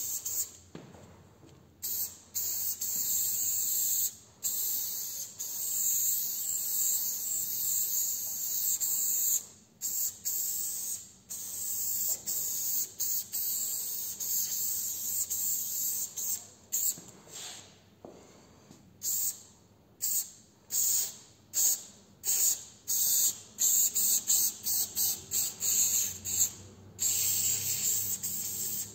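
Aerosol spray-paint can spraying in on-off bursts, a loud high hiss with sharp starts and stops. There are long continuous passes early on, then many short quick bursts in the second half.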